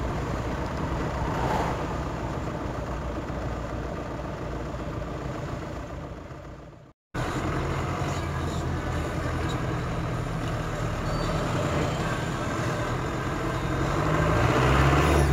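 Car engine and road noise heard from inside the cabin while driving, a steady low hum. The sound fades and cuts out briefly about seven seconds in, then returns, growing louder near the end.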